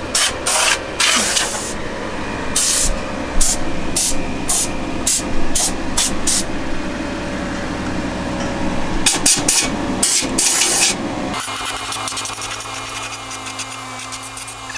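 Short blasts of compressed air from an air blow gun, clearing out the frame's bolt inserts: rapid bursts through the first six seconds and again about nine to eleven seconds in, over a steady low hum.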